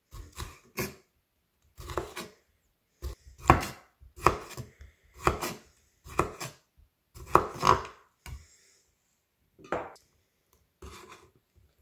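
Chef's knife halving grape tomatoes on a wooden cutting board: each cut ends in a knock of the blade on the wood, at an uneven pace of about one or two a second.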